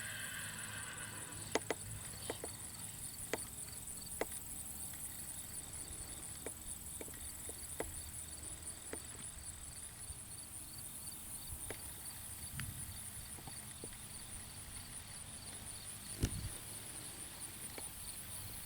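Scattered, irregular hoof clops from an American Quarter Horse gelding, over a steady low hum and a faint, evenly pulsing high hiss.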